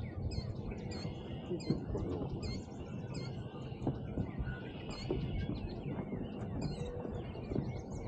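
Several small birds singing in a marsh chorus: short, high, repeated notes, several a second, over a steady low rumble.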